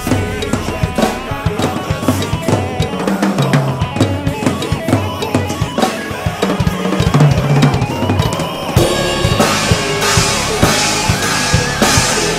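Instrumental rap music: a drum kit beat of bass drum and snare hits, growing fuller with bright cymbal-like hiss about nine seconds in.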